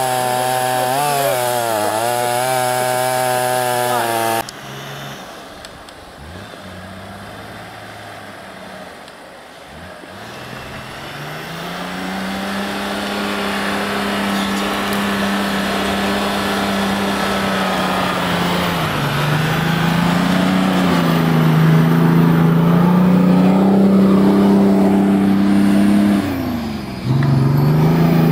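Motor engines revving hard. A high, wavering rev cuts off abruptly about four seconds in. After a quieter stretch, an engine builds up from about ten seconds to a steady high rev that shifts pitch a few times and drops out briefly near the end.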